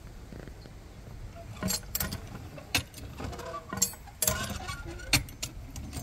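Old cast-iron hand water pump being handled: irregular metallic clanks and clinks with short squeaks, starting about a second and a half in.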